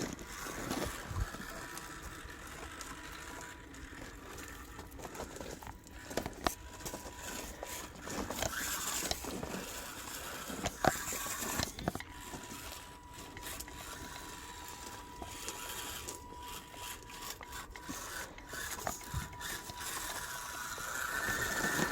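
1/24-scale RC4WD mini crawler with an F130 motor crawling slowly over rocks: a faint steady whine from the motor and drivetrain, with scattered scrapes and clicks of the tires and chassis on rock.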